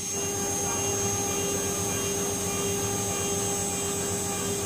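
Mini CNC router's spindle running with a steady whine while an engraving bit cuts into a brass disc, the cutting noise continuous under the tone.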